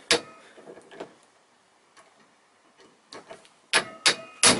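A hammer striking an impact screwdriver to break loose a seized bolt on a throttle body: one sharp blow at the start and a couple of light taps, then a run of three heavy blows near the end, about three a second. Each blow rings with a metallic tone.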